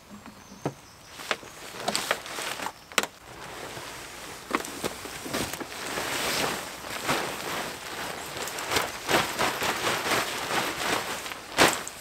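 Fabric of a car awning tent rustling and flapping as it is lifted off the back of a hatchback and gathered up, denser in the second half, with scattered sharp clicks and knocks.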